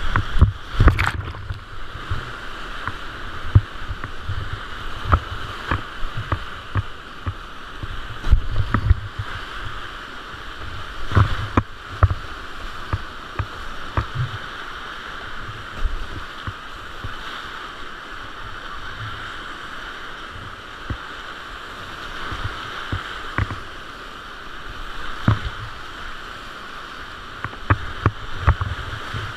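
Whitewater rapids of the Gyr river rushing steadily around a kayak, with frequent sharp splashes and low thuds as waves and paddle strokes slap the boat.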